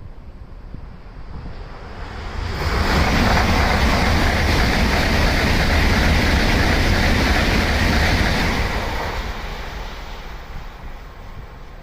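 Tokaido Shinkansen high-speed train passing through a station without stopping: a rushing noise of air and wheels that swells sharply about two and a half seconds in, holds for about six seconds, then fades away.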